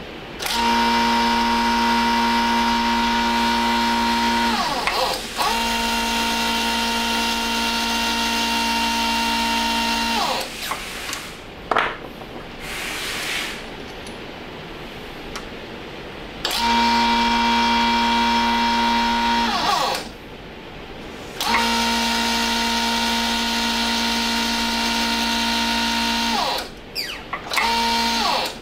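Electric motor of a shop press humming steadily in four long runs, two pairs of runs with short gaps, each run winding down with a falling pitch as it is switched off, while new bushings are pressed into MGB rocker arms. A few sharp metal knocks come between the runs.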